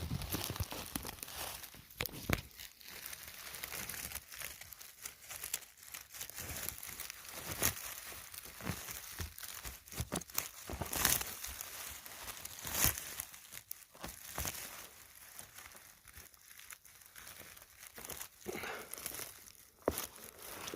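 Dry forest-floor litter rustling and crackling irregularly, with sharp snaps now and then.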